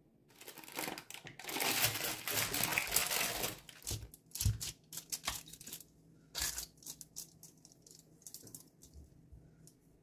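Parchment paper crinkling and rustling under hands working chickpea-flour cookie dough, loudest in the first few seconds, then thinning to scattered light clicks and short rustles.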